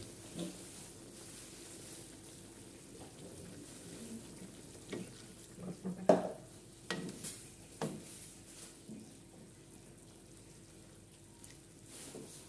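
Pork in sweet soy sauce (babi kecap) frying and sizzling in an aluminium wok, with a few sharp knocks and splashes in the middle, the loudest about six seconds in, and a wooden spatula stirring it near the end.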